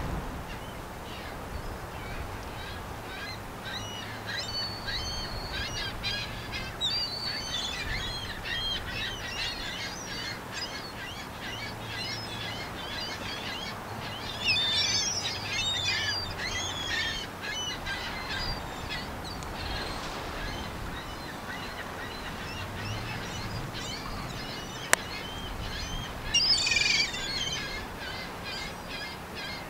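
A flock of birds chirping and calling continuously, with louder bursts about halfway through and again near the end, and a single sharp click shortly before the end.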